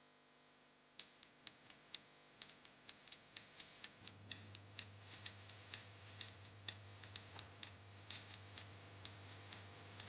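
Quiet clock-ticking sound effect of a quiz countdown timer, about four ticks a second, starting about a second in. A low steady hum joins about four seconds in.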